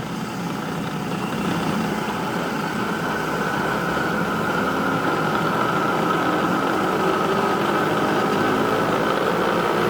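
A Chevalier turret mill's spindle running under its 3 hp motor, sped up on the variable-speed drive toward top speed. It makes a steady mechanical running noise with a faint whine, growing gradually louder as the speed rises.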